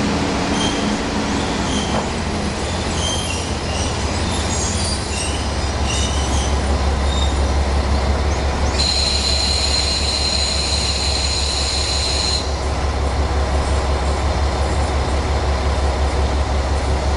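KiHa 47 diesel railcar rumbling as it rolls slowly along the platform track, with short high squeaks from the running gear in the first few seconds and a steady high-pitched squeal from about nine to twelve seconds in.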